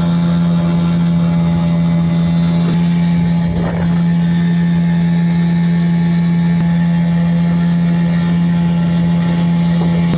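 Outboard motor on an inflatable boat running steadily at cruising speed, a constant drone at one even pitch, with a brief rush of noise about four seconds in.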